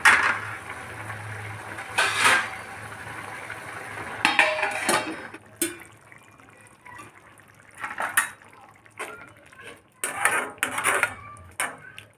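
Slotted metal spatula scraping and clinking against a steel kadhai as tomatoes are stirred, over a steady frying sizzle for the first four seconds. About four seconds in comes a brief pouring sound, and later the spatula scrapes through a watery tomato gravy a few more times.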